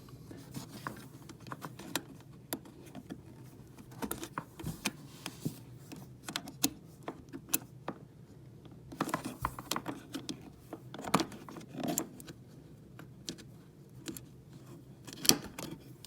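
Hands working small plastic parts: irregular clicks, scrapes and rattles as a dishwasher float switch and its wire-harness connector are unclipped and pulled free, with a few sharper snaps in the middle and one near the end, over a low steady hum.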